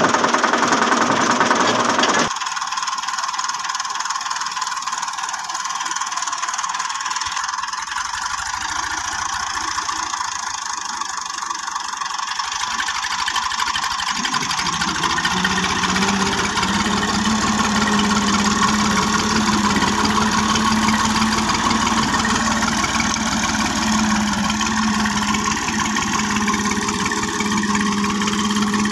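Farm tractor's diesel engine running as it pulls a hitched trailer. A steady low engine note settles in about halfway through.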